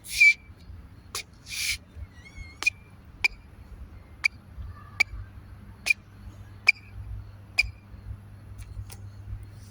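Sneakers squeaking: a string of short, sharp chirps about one or two a second, with a louder squeal at the start, a few scuffing swishes in the first two seconds and a brief wavering squeak about two seconds in.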